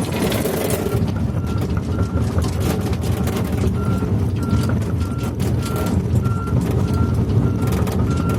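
Volvo 210 excavator's diesel engine running steadily, with a short high warning beep repeating roughly twice a second from its travel alarm.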